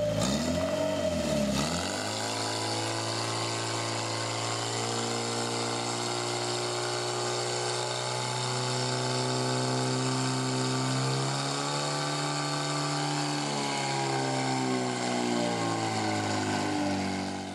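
Portable fire pump's engine running hard while it pumps water through the laid-out hoses to the nozzles. Its pitch dips and swings back up in the first couple of seconds, then it holds a steady high-revving note that shifts slightly in pitch later on.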